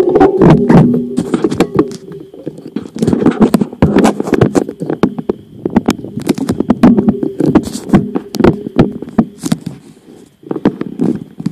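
Bicycle rolling over cracked, bumpy asphalt: constant irregular clattering and rattling from the bike over the cracks, on top of a low rumble from the tyres. It eases off briefly about two seconds in and again near ten seconds.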